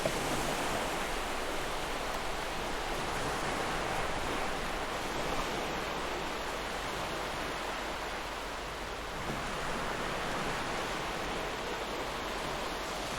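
Ocean surf: a steady rush of waves that swells and eases slowly, dipping briefly about two thirds of the way through before building again.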